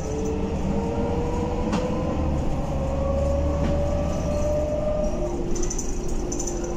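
Irisbus Citelis 18 articulated bus accelerating hard, heard from inside the cabin: over a steady low rumble, the engine and transmission note climbs slowly in pitch, then drops about five seconds in as the automatic gearbox shifts up. A single click comes about two seconds in.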